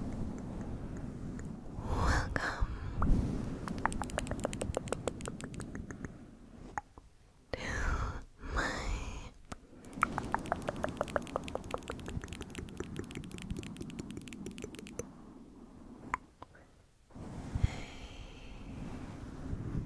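Close-up ASMR scratching and brushing on the microphone: fast runs of fine ticks, with a few soft swishes between them and a brief lull near the end.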